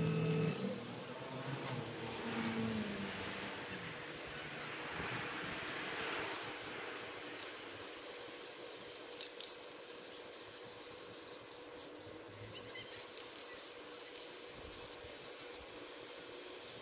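Aerosol spray paint can hissing in on-and-off bursts as the carved sign is painted, over a faint steady hum, with high chirping in the background.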